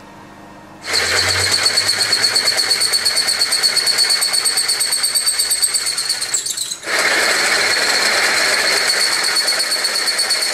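Milling-machine spindle driving a twist drill into a cast metal plate: a steady, high-pitched cutting whine with a fast even pulse, starting about a second in. It breaks off briefly about two-thirds through, then the larger 1/2-inch HSS drill takes up the cut.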